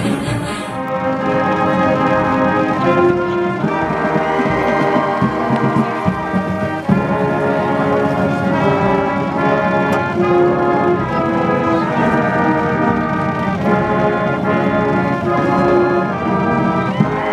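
A school band's brass playing a tune in held chords that change every second or two.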